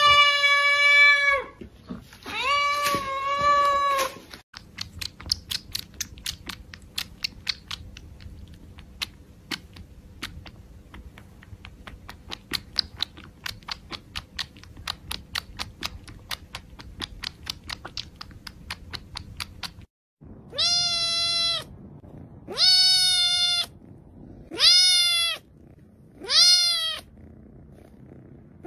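Kitten meowing twice, long loud calls. Then a kitten suckling at a milk feeding bottle, making a run of small clicks about two to three a second. Then a kitten meowing four times in short rising-and-falling calls.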